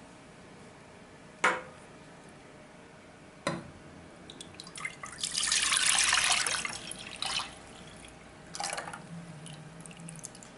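Liquid pouring and splashing for about two seconds in the middle, with shorter splashes after it and two sharp knocks before it.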